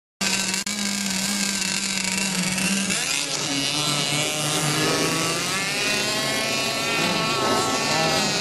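RC model racing boat engine running at high speed, cutting in suddenly: a steady buzz for about three seconds, then wavering up and down in pitch as the boat runs across the water.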